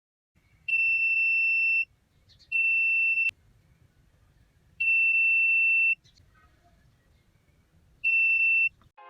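Buzzer of a homemade laser security alarm sounding a steady high-pitched tone four times, each for about a second, with short gaps between. Each tone is the alarm going off while the laser beam is broken.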